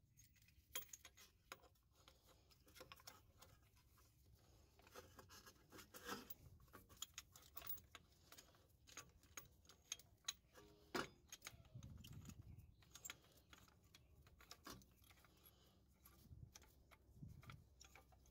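Faint, scattered metallic clicks and clinks from a screw-type disc brake spreader and old brake pad being fitted to a rear brake caliper and wound in, pushing the caliper piston back into its bore.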